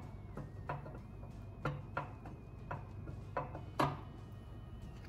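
LS6 camshaft being turned and slid by hand into the cam bearings of a 6.0 L LQ9 V8 block, its lobes and journals knocking against the bearings and block in about six light, irregular clicks.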